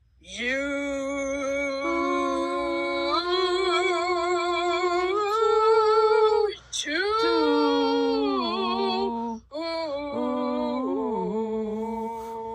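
A single high voice singing or humming wordless long held notes with vibrato, stepping up and down in pitch, in three phrases with brief breaks about six and a half and nine and a half seconds in.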